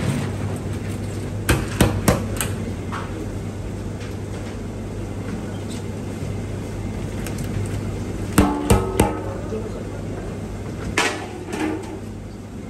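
Drained rice being tipped from a metal bowl into a large metal cooking pot, with sharp metal clanks of the bowl against the pot: three about one and a half seconds in, a louder ringing cluster a little past the middle, and a couple more near the end, over a steady low hum.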